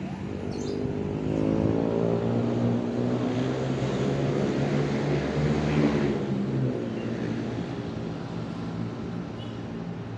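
A motor vehicle's engine passing on the road, growing louder to a peak about six seconds in and then fading away.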